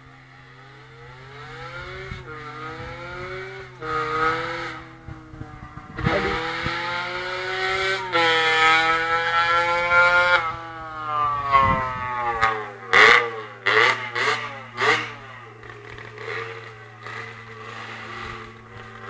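Aprilia RS 50's two-stroke Minarelli AM3 engine, bored to 75 cc with a Polini kit and breathing through a Leovinci exhaust, revving up and dropping back several times, with a few quick throttle blips near the end. The engine is running rich: the carburettor jet is too big and the air filter is not clean.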